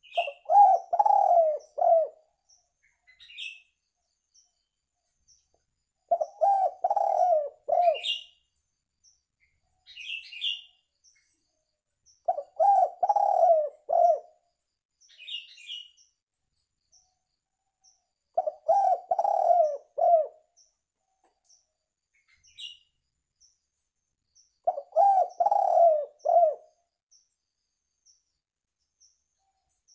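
Spotted dove (tekukur) cooing: five phrases of several notes each, about two seconds long, repeating roughly every six seconds. Short high chirps sound in the gaps between phrases.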